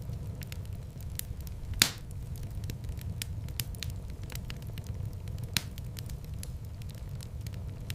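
Wood fire in a fireplace crackling over a steady low rumble of flames, with many small crackles and two louder pops, one about two seconds in and one near six seconds.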